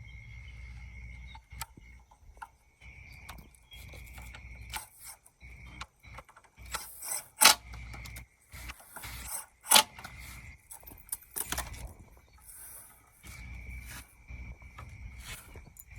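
Metal gazebo parts and hardware clinking and knocking during assembly, a scatter of light clicks with two sharp, louder knocks about seven and ten seconds in. A steady high insect drone runs underneath.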